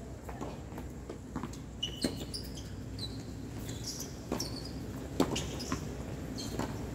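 Tennis balls striking and bouncing on a hard court: scattered sharp knocks, the loudest about five seconds in.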